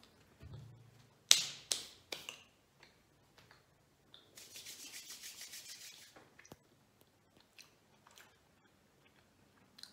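Hands rubbing briskly together to brush donut crumbs off the fingers: about two seconds of rapid, even rasping strokes near the middle. A few sharp clicks and smacks come shortly before, about a second in.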